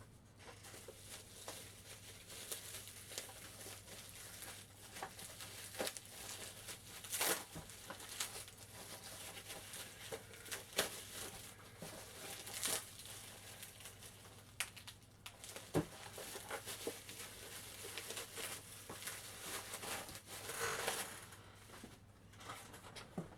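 Packaging being handled, crinkling and rustling, with scattered short taps and clicks throughout.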